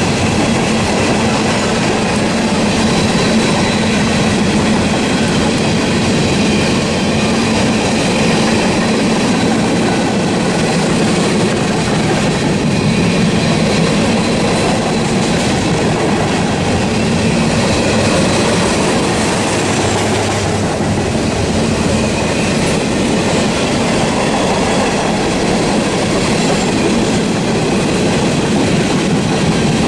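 Norfolk Southern freight train cars rolling past, a steady loud wheel-on-rail noise that carries on unbroken.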